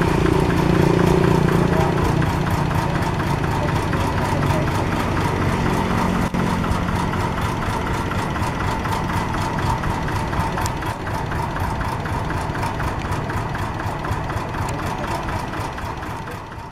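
Kubota single-cylinder horizontal diesel engine of a two-wheel walking tractor running steadily, with an even, rapid beat.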